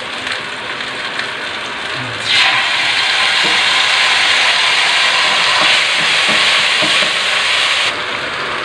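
Hot oil sizzling in a nonstick frying pan. About two seconds in, red sauce goes into the pan and the sizzle gets louder, then eases back near the end.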